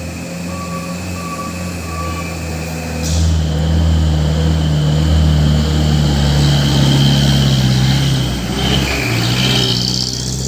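A heavy truck's diesel engine running, with a reversing alarm beeping during the first two seconds. About three seconds in there is a short hiss, and the engine then pulls louder with a high whine over it, easing off near the end.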